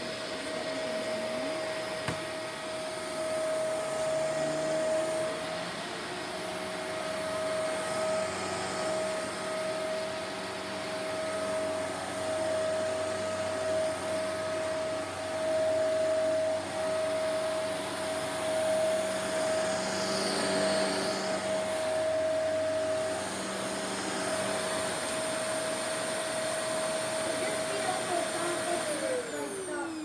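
Upright vacuum cleaner running with a steady motor whine over a constant rush of airflow, then switched off near the end, its pitch sliding down as the motor winds down.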